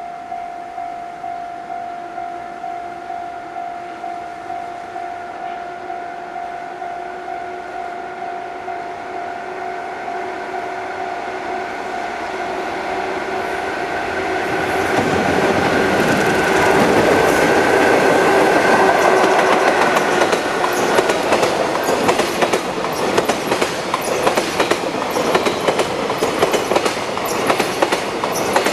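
JR Freight EF66 electric locomotive hauling a long container freight train through a station. A steady high tone pulses about twice a second as it approaches, and the train noise swells to its loudest as the locomotive passes about midway. The tone fades, and the container wagons roll by with a rhythmic clickety-clack of wheels over rail joints.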